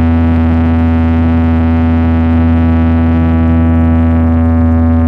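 Loud, steady synthesizer drone with a heavy bass and a buzzy stack of overtones, held on one pitch, played through a DJ sound system as a sound check.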